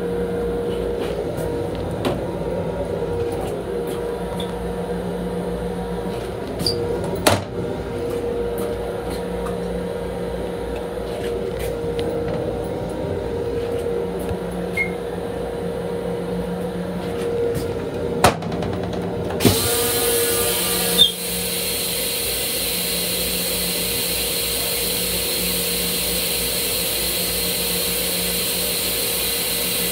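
M7 railcar restroom toilet being flushed. A loud, steady rushing hiss starts suddenly about two-thirds of the way in and keeps going. Before it there is the even hum of the moving train with a few sharp knocks.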